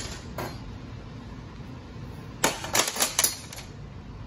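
Metal transmission parts clinking as they are handled on a bench: one light click near the start, then a quick run of about five sharp metallic clicks a little past halfway, over a steady low hum.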